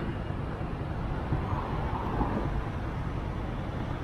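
Motorcycle engine idling at a stop, a steady low rumble, with street traffic noise around it.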